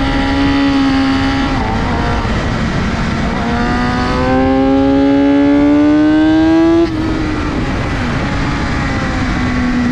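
BMW S1000RR inline-four engine at track speed, heard from an onboard camera with heavy wind noise on the microphone. The revs ease back about a second and a half in, then climb steadily through one gear for about three seconds before the throttle snaps shut near seven seconds in and the engine drops to a lower note on the overrun.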